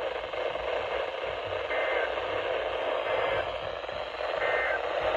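Weather radio receiver hissing with steady static now that the spoken warning has ended. Two short high tone bursts come through the hiss, about two and a half seconds apart.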